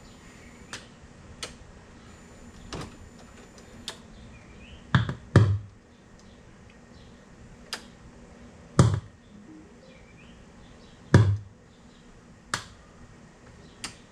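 Scattered sharp clicks and knocks of plastic dash panels and parts being handled and pried, the loudest a double knock about five seconds in and single knocks near nine and eleven seconds.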